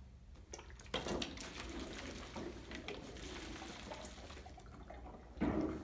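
Water sloshing and gurgling inside two plastic bottles joined neck to neck by a tornado-tube connector as they are turned over and swirled, with small knocks of the plastic being handled. There is a louder slosh about a second in and again near the end.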